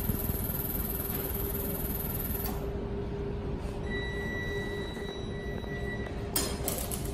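Laser welding machine running with a steady hum. About four seconds in a high-pitched whine holds for roughly two seconds while the work table is moved by joystick, and a short rush of noise comes near the end.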